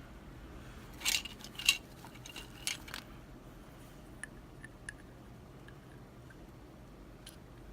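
Small metal clinks and taps as lock parts and tools are handled on a work surface during disassembly: a cluster of sharp clinks between about one and three seconds in, then a few light ticks.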